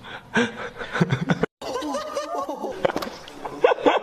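Young men laughing hard in quick, high-pitched giggles and cackles. The sound breaks off for a moment about one and a half seconds in, then another bout of laughter follows.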